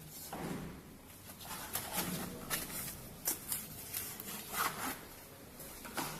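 EDM hole-drilling machine at work: irregular scratchy crackling and sharp clicks over a steady low hum.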